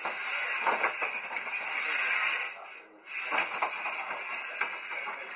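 Slot-car monster trucks running round a plastic slot-car track: a steady hissing, rattling run of small electric motors and pickups on the rails. It drops away briefly about three seconds in, then picks up again.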